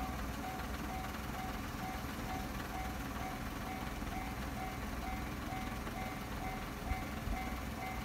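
Japanese railway level-crossing warning bell ringing with a steady, repeating electronic clang, about two strokes a second, signalling an approaching train. It rings over a steady low rumble.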